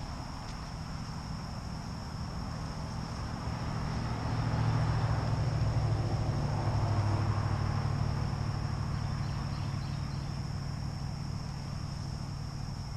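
A steady high insect chorus of crickets, with a low engine drone that swells about four seconds in and fades again a few seconds later: a vehicle passing on the nearby highway.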